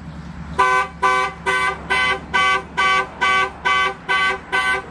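Car horn honking over and over in an even rhythm, about two to three short two-tone honks a second, starting about half a second in. It is the car's panic alarm, set off from the key fob.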